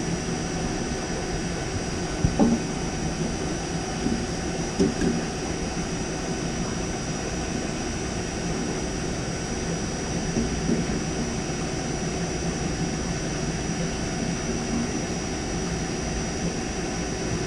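Steady machinery drone, with a few brief knocks about two, four and five seconds in.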